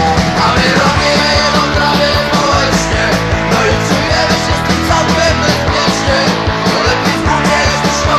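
Punk rock song: a full band of electric guitars, bass and drums playing with a steady beat.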